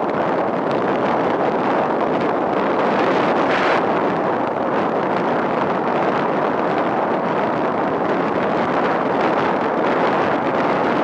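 Wind rushing steadily over the microphone of a land yacht sailing across a dry lake bed, with a short louder hiss of wind about four seconds in.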